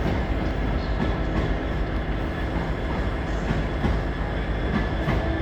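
Class 730 electric multiple-unit train running through the station: a steady rumble with a few wheel clicks, and thin whines from its electrics, one of them rising slightly near the end.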